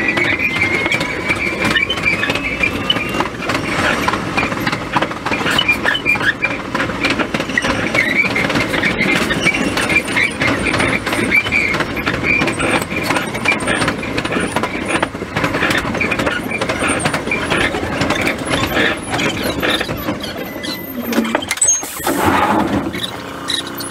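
Choshi Electric Railway 3000-series electric train running along the track, heard from the cab: a steady rumble of wheels on rail with many rapid clicks, and a high wheel squeal on the curves, strongest in the first few seconds. The sound is sped up to four times its normal speed.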